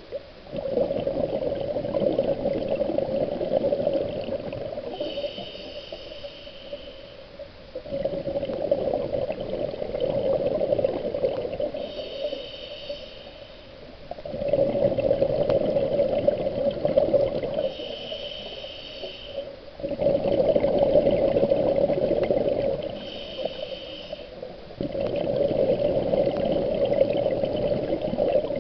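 Scuba diver breathing through a regulator underwater, in a slow steady rhythm. Each long exhalation of bubbling, about five of them, is followed by a short inhalation with a high whine from the regulator.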